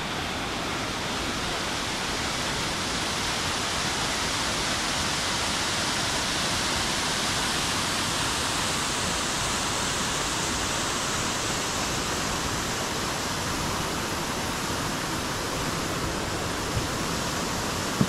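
Small waterfall and rocky stream, water rushing steadily over stones.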